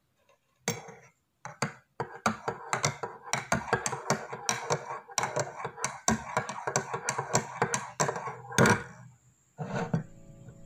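Metal spoon stirring in a ceramic mug, clinking against the sides several times a second, with one louder knock near the end.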